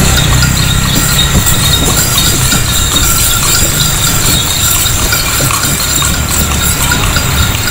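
Horse-drawn cart rolling along a paved street: a steady rattle and clatter from the wheels and carriage over a low rumble.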